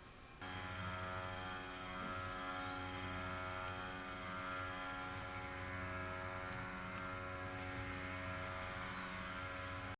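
Machinery of a CNC cell running: a steady, many-toned machine hum with a high whine that rises about two seconds in, steps up in pitch around five seconds and falls away near the end. It starts suddenly and cuts off abruptly.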